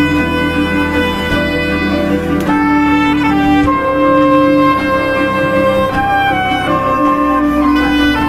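Soprano saxophone playing a slow melody of long held notes, live over a recorded backing track with bowed strings.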